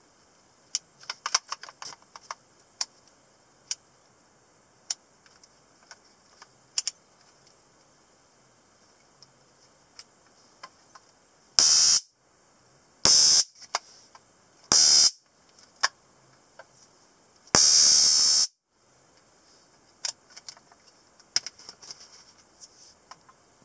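CW-1 stun gun arcing across its electrodes in four loud bursts: three short ones and a last one about a second long. Before them come a series of sharp clicks from its switches and from handling.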